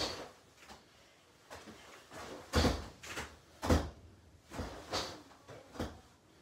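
A series of short, sharp knocks and snaps, roughly one a second and the strongest near the middle, from two people doing repeated karate front snap kicks while bringing their heels back to rest on a plastic laundry basket and a chair.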